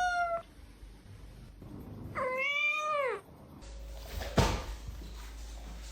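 Domestic cat meowing: one long meow trails off just after the start, and a second drawn-out meow comes about two seconds in. A single sharp knock about four and a half seconds in is the loudest moment.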